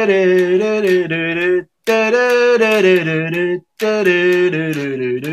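A man singing unaccompanied without words, in long held notes that step in pitch, in three phrases broken by short breaths.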